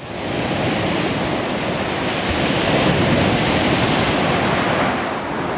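Storm waves crashing against a steel sheet-pile groyne and breaking on a shingle beach: a loud, steady rush of surf that swells a little midway.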